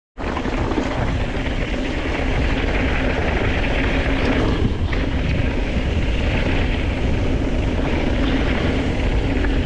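Steady wind noise rushing over the microphone with a low rumble from a mountain bike rolling along a trail, beginning just after a very brief cut-out.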